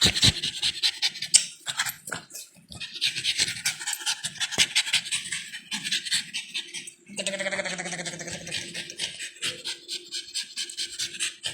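A pet dog panting rapidly and excitedly, with a brief pitched sound about seven seconds in.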